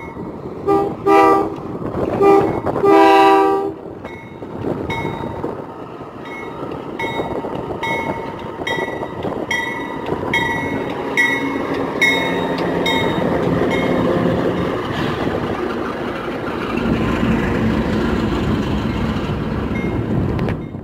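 A Union Pacific diesel locomotive sounds three horn blasts on approach. Its bell then rings steadily, a little faster than once a second. The diesel engine grows louder as the locomotive passes close by underneath.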